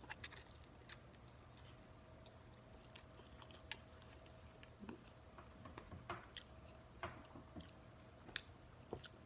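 Quiet chewing close to the microphone, with scattered small wet clicks and smacks from the mouth, over a low steady hum.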